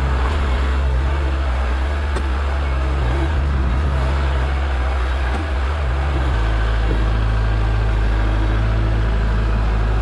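Kubota L4701 tractor's four-cylinder diesel engine running steadily while it moves snow with its front loader. Its engine note shifts about six seconds in.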